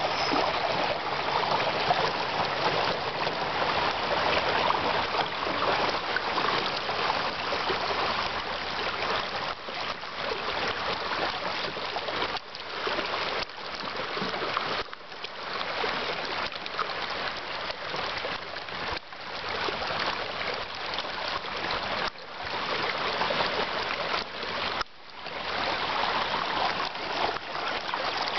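Shallow river water rushing steadily over rocks and through grass in a riffle, with a few brief dips in level.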